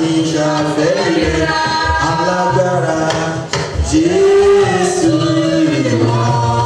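Church choir of women singing a hymn into microphones over a PA system, with sustained low notes underneath.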